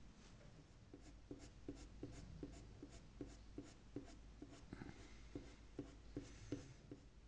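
Faint pencil strokes on paper, quick and evenly spaced at about three a second.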